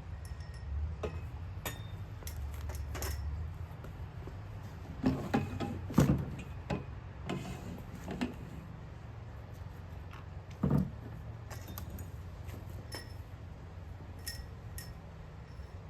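Scattered metallic clinks and knocks of hardware and tools being handled, with a few louder knocks about five to six seconds in and again near eleven seconds.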